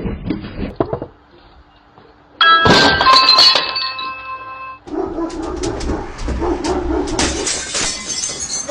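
A doorbell chimes about two and a half seconds in, with several ringing tones that fade over a couple of seconds. Then a dog barks.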